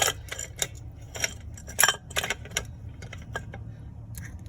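Metal tools and hub hardware clinking while a car's rear wheel hub is refitted: about a dozen short, irregular metallic clicks and clinks over a steady low hum.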